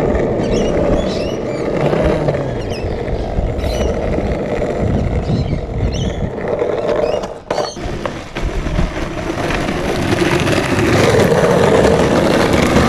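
Skateboard wheels rolling over rough asphalt: a loud, steady rumble that dips briefly about halfway through, then carries on.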